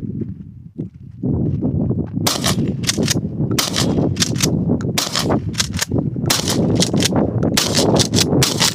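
A Mossberg Maverick 88 12-gauge pump-action shotgun fired again and again, the pump worked between shots to eject spent shells. The shots start about two seconds in and follow each other quickly.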